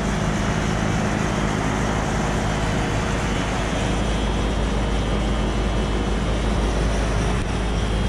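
Bosch IDS inverter heat pump outdoor unit running steadily in heat mode: a constant hum of the condenser fan and inverter compressor, with steady low tones.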